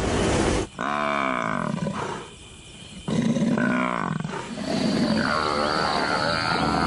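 Lions growling at a kill while a Cape buffalo bull bellows in distress under attack. The drawn-out bellows repeat several times, with a brief lull about two seconds in.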